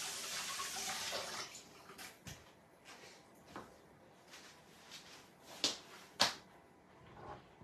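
Water running from a kitchen tap that stops about a second and a half in, followed by scattered light clicks and knocks, with two sharper clicks near the end.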